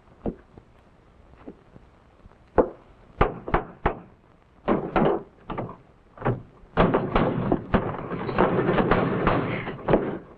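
Cupboard doors and kitchenware knocking and clattering. There are a few separate sharp knocks at first, then they come closer together, and from about seven seconds in there is a dense, continuous clatter.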